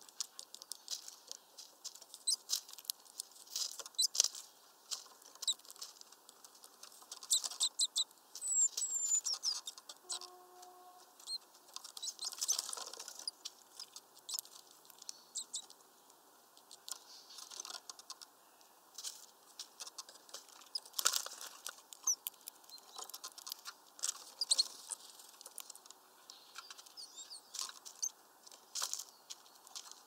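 Small birds, tits among them, pecking and clinging at a mesh peanut feeder: many irregular sharp taps and scratches, with scattered brief high, thin chirps.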